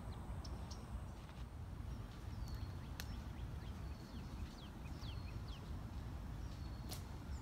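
Small birds chirping in short, high, falling notes over a steady low rumble, with two sharp clicks, one about three seconds in and one near the end.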